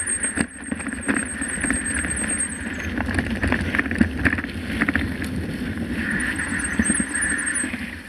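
Mountain bike rolling over a rough dirt and gravel track: a steady rumble of tyres, with light rattles and clicks from the bike and wind on the microphone. A high, thin pulsing buzz sounds at the start and again near the end.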